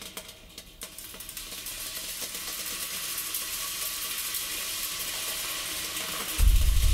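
Electronic noise texture: a few clicks, then a crackling hiss that swells steadily in loudness. A loud, deep bass tone comes in suddenly near the end.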